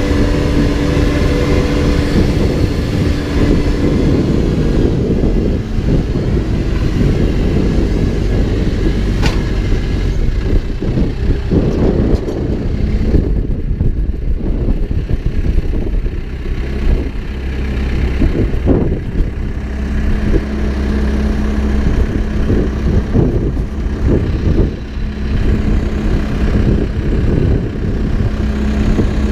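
Backhoe engine running steadily under work, its pitch shifting a few times, with occasional sharp knocks, one about nine seconds in and another around nineteen seconds.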